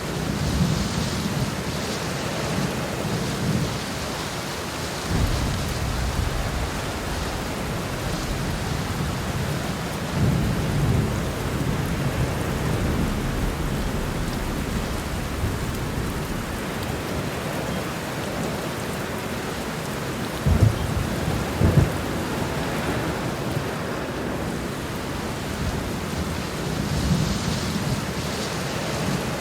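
Heavy rain falling steadily in a thunderstorm, with thunder rumbling several times. Two sharper claps of thunder come close together about two-thirds of the way in.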